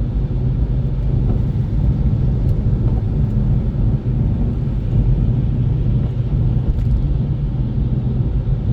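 Steady low rumble of an Infiniti Q50 Red Sport 400 cruising, its twin-turbo V6 and tyre noise blending into an even drone.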